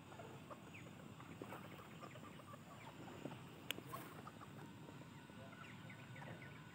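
Quiet outdoor background with faint, scattered short bird chirps and a single sharp click a little under four seconds in.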